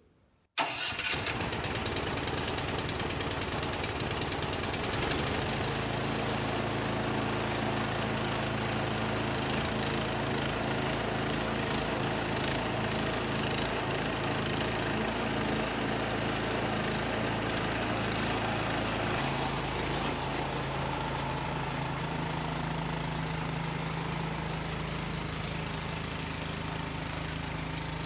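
Toro Power Max 828 snowblower's engine on a cold first start, electric start with the choke on, catching at once about half a second in and then running steadily. Its note shifts a little about two-thirds of the way through.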